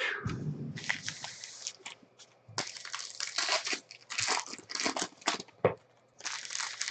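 Trading-card pack wrappers being torn open and crinkled by hand, in several bursts with short pauses between.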